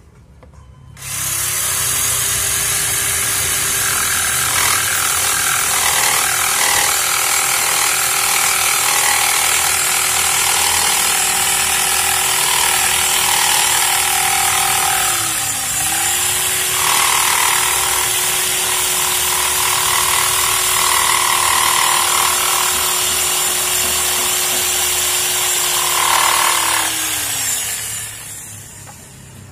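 Bosch electric jigsaw starting up about a second in and running steadily as its blade cuts across a wooden plank. The motor speed dips briefly about halfway through, picks up again, then winds down and stops near the end.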